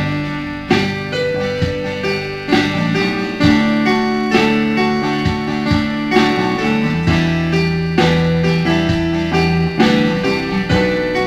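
Piano arpeggios played on an electric stage keyboard in a slow ballad, over acoustic guitar and bass backing, with notes struck at an even, unhurried pace.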